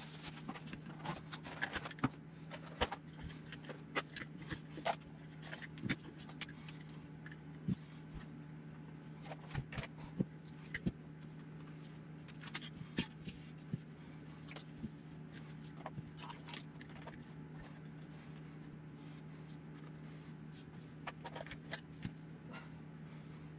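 Hands unpacking and setting out a set of four RC tire scale pads: scattered clicks and taps with bursts of rustling plastic wrap and cardboard, over a steady faint hum.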